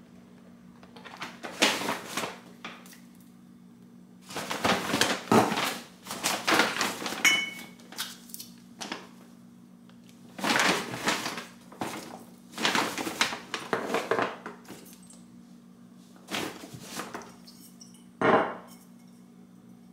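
Paper grocery bag rustling and crinkling in irregular bursts as groceries are pulled out, with boxes and bottles knocked and set down. A steady low hum runs underneath.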